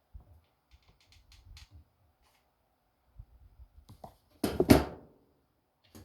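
Hand-handling noises from work on a small animated holiday village piece: a few light clicks and taps, then one loud, short scraping knock about four and a half seconds in.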